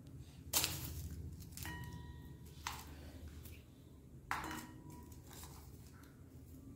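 A stainless steel plate on the floor clinking four times, each a sharp metallic tap with a short ring, as a small child handles peeled garlic cloves in it.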